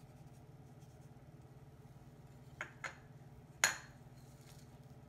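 Two soft clicks and then one sharper clink about three and a half seconds in, from kitchen things being handled, over a low steady hum.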